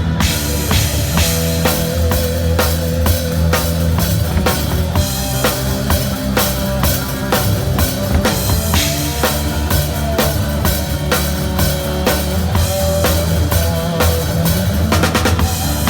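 Drum kit played in a steady rock beat, with bass drum and snare hits, along with other instruments holding notes underneath.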